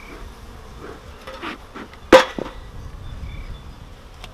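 Honey bees buzzing around an open hive box, with one sharp, loud clack about two seconds in as the metal bee smoker is handled and set down, and a few fainter knocks before it.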